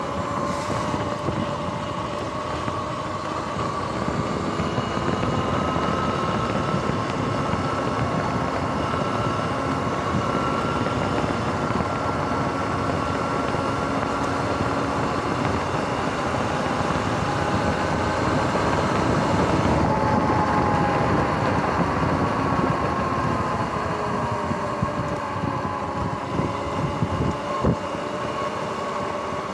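Electric dirt bike's motor whining as it rides, the whine rising and falling in pitch with speed over steady tyre and wind noise. A few sharp knocks near the end.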